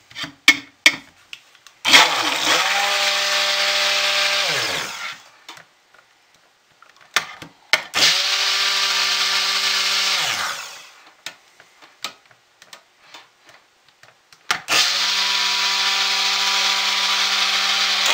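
Hamilton Beach immersion (stick) blender run in three pulses of about three seconds each in a stainless steel pot of soap batter, its motor whine rising as it spins up and falling as it stops. Between pulses the blender shaft knocks lightly against the pot. This is pulse-blending cold process soap oils and lye toward emulsification.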